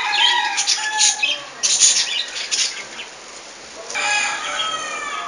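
Birds calling, with a pitched call near the start and another near the end, among short crackling sounds in the first half.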